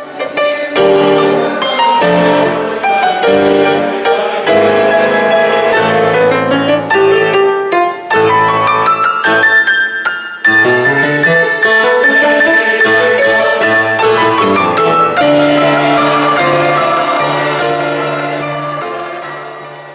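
Piano music playing dense runs of notes over a sustained bass, with one high note held for a few seconds midway. It fades out over the last few seconds as the piece ends.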